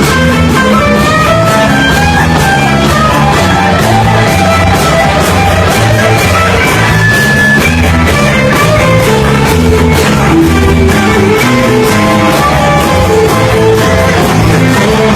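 Live rock band playing an instrumental warm-up: electric guitar lines over bass and drum kit, with a steady beat.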